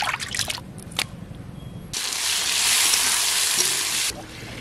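Water splashing as hands wash pabda fish in a steel bowl, then, about two seconds in, loud sizzling of tomato and green chilli frying in oil in a wok, which cuts off suddenly after about two seconds.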